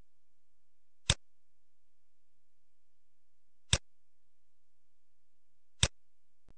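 Computer mouse clicks: three single, sharp clicks, about a second in, near the middle and near the end.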